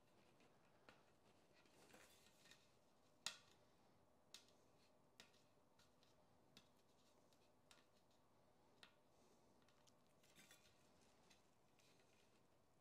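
Near silence, broken by faint, scattered small clicks and light handling noise about once a second, the most distinct one about three seconds in and a short cluster near the end.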